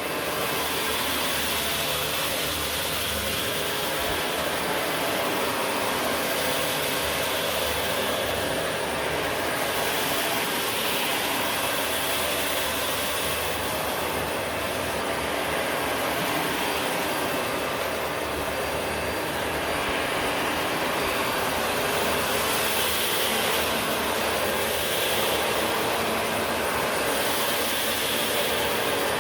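Vacuum cleaner running steadily, its rushing noise swelling and easing every few seconds.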